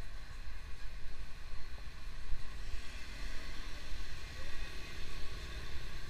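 Busy street ambience: an uneven low rumble of passing traffic, with faint voices of passers-by.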